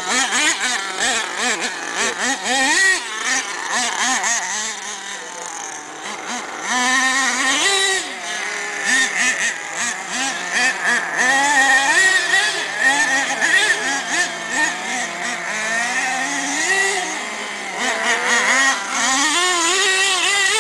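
Small nitro engines of several RC monster trucks running at once, their high-pitched buzz rising and falling as they rev up and back off.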